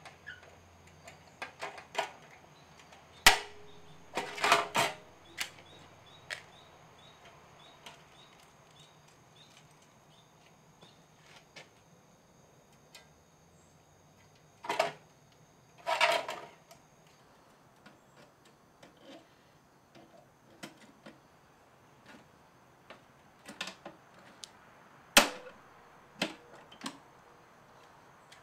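Hand pop-rivet gun setting rivets into a sheet-metal toolbox lid: sharp snaps and clicks at irregular intervals as the handles are squeezed and the rivet mandrels break. The loudest single snaps come a few seconds in and again near the end.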